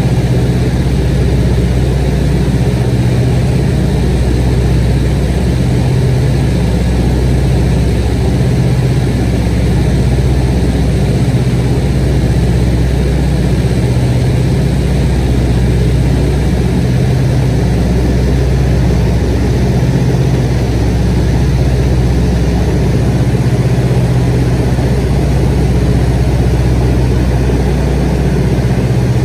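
A light aircraft's engine and propeller running at a steady, unchanging drone, heard loud from inside the cabin in flight.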